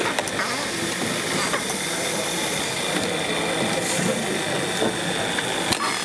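Automated stylus-assembly machinery running on a factory floor: a steady even hiss with a thin high whine and occasional sharp clicks, one of them near the end.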